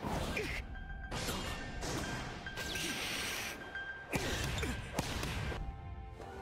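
Anime volleyball sound effects: a string of sharp whooshes and hard hits as the ball is spiked and blocked at the net, over background music.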